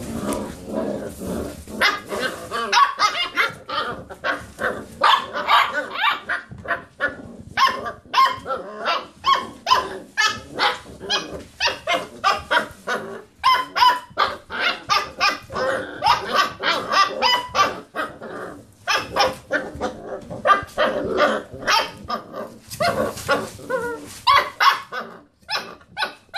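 Basset hound puppies barking during play: a quick, unbroken run of short, high-pitched puppy barks, several a second.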